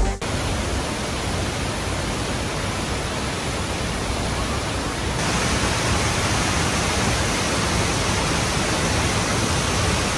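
Steady rush of a tall waterfall plunging into its pool, getting slightly louder and brighter about five seconds in.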